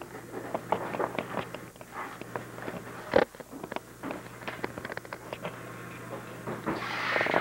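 Gift-wrapping paper crinkling and rustling in the hands as a present is wrapped, with many irregular small clicks and crackles. A sharp snap comes about three seconds in and a longer burst of rustling near the end, over a steady low hum.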